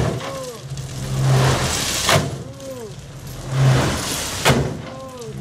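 Mitsubishi Fuso dump truck's diesel engine running and revving in pulses about every two seconds as the truck creeps forward with its bed raised, spreading gravel from the open tailgate. A sharp clatter and falling squeaks recur in the same rhythm.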